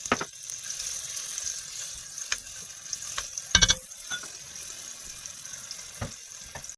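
Grated garlic sizzling in hot oil in a pan: a steady hiss broken by a few sharp knocks, the loudest about three and a half seconds in.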